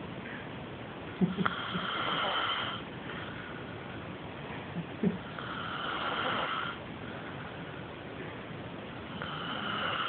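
A man snoring in his sleep: three long snores about four seconds apart. A few short clicks and brief low sounds come between the first two.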